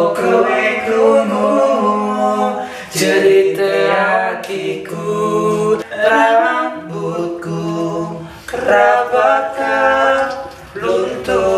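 An a cappella choir singing in harmony, with several voices at once in phrases separated by brief breaths.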